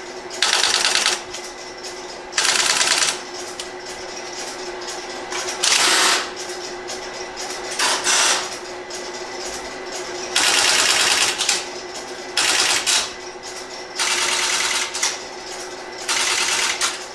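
Stromberg-Carlson XY telephone switches stepping to dialed digits: about eight short bursts of rapid mechanical clicking, each under a second, with a faint steady tone underneath.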